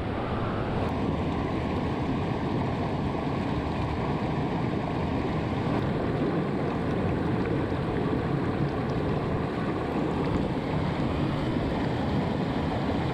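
Mountain creek rushing and splashing over boulders and small cascades: a steady, unbroken rush of water.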